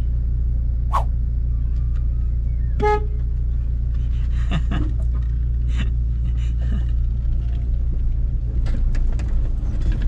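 Car engine idling, heard from inside the car, a steady low hum. Over it come scattered short clicks and knocks, and a brief high-pitched note about three seconds in.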